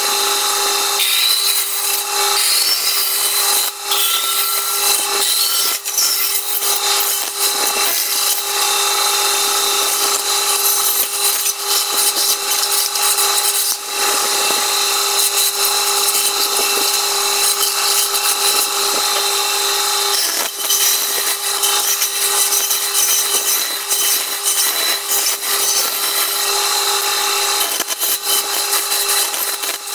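Band saw running with a steady hum while it cuts through a stack of wooden strips. The cutting noise is continuous, with a few short dips between passes.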